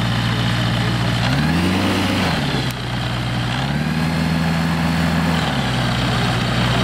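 Gyrocopter's pusher engine and propeller running at a low, steady speed while taxiing, with the revs rising briefly about a second in and again for a couple of seconds in the middle before dropping back.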